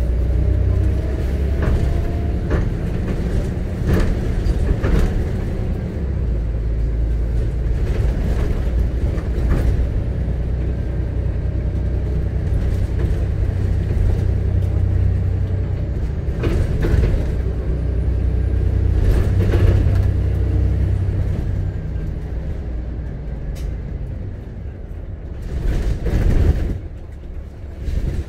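Volvo B7RLE bus heard from inside the saloon while under way: its rear-mounted 7-litre six-cylinder diesel and the road give a steady low drone, with the cabin rattling and knocking now and then. The drone eases after about twenty seconds, and there is a louder burst of noise near the end.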